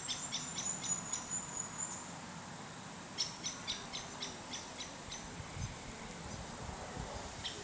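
Outdoor insect chorus, a steady high buzz, with two runs of short high chirps at about five a second: one at the start and one about three seconds in.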